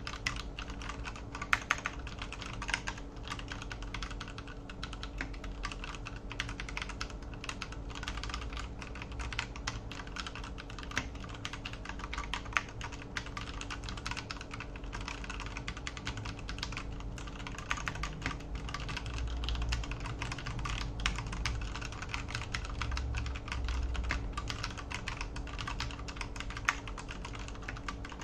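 Typing sound test on an Akko 3087 V2 tenkeyless mechanical keyboard fitted with Akko Orange V2 tactile switches, which have no click. The keystrokes come quickly and continuously, with keycaps bottoming out on the plate.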